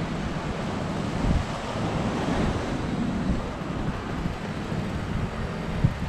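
Wind buffeting the microphone, with the wash of sea waves on the shore underneath.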